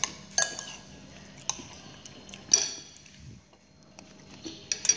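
Metal spoon clinking against a ceramic plate while scooping rice and soup: a handful of separate short clinks, some ringing briefly, the loudest about two and a half seconds in.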